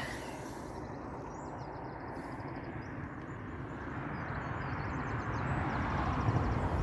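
Road traffic: a car approaching on the road, its tyre and engine noise swelling steadily over the last few seconds, with faint birdsong in the first half.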